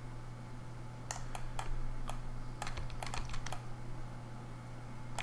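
About a dozen irregular clicks of a computer keyboard and mouse, bunched in the first three and a half seconds, over a steady low hum.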